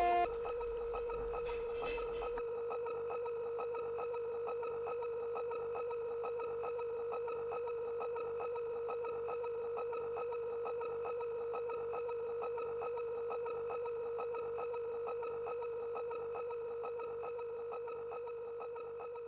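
A steady electronic tone: one held pitch with overtones and a faint, even, rapid pulse, slowly fading out near the end.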